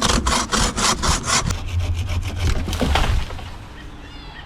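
Hand saw cutting through a log with quick, even strokes, a few a second; after about a second and a half the strokes turn rougher and run together, and the sawing stops about three seconds in.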